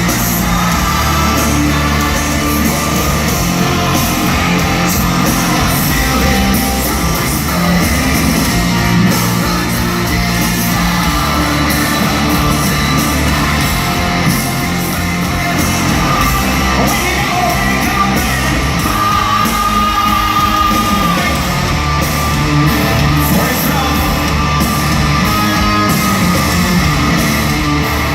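Live hard rock band playing loud, with distorted guitars, drums and a shouted, sung lead vocal, heard in a large hall.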